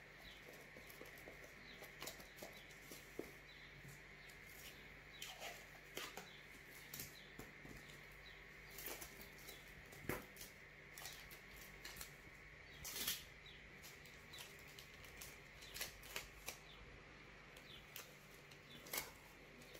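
Faint rustling and crinkling of paper cutouts and clear adhesive tape being handled on cardboard toilet-paper tubes, with scattered light clicks, over a steady low hum.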